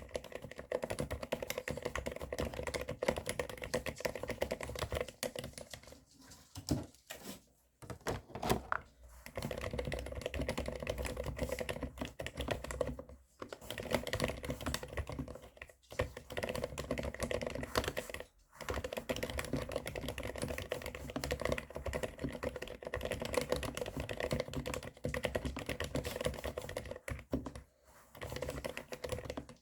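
Typing on a mechanical keyboard with Cherry MX Silent Black linear switches (65 g): muted, scratchy keystrokes meant to resemble an electrostatic capacitive (Topre-style) keyboard. The typing comes in runs broken by a few short pauses.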